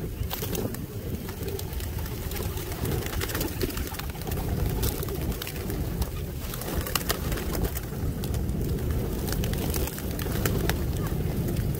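A dense flock of feral pigeons feeding on scattered grain: wings flapping, with many small clicks and rustles from pecking and jostling, and pigeons cooing, over a steady low rumble.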